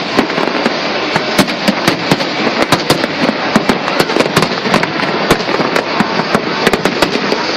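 Fireworks display: dense crackling over a steady hiss, with sharp pops several times a second.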